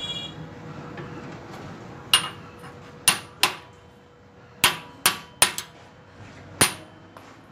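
Steel pipe knocked against steel angle iron clamped in a bench vise: about seven sharp, ringing metal clinks, irregularly spaced, some in quick pairs.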